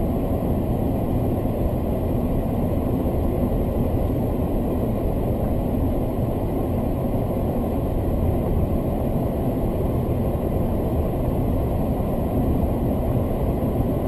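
Steady, loud low rumble of a vehicle engine running at idle, with no change in pitch.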